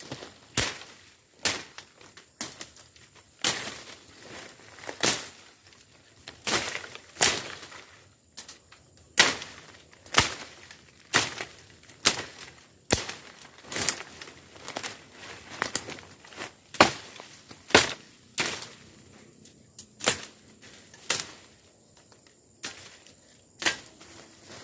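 A steady series of sharp cracks and rustles in dry scrub, about one or two a second, with no brush-cutter engine running.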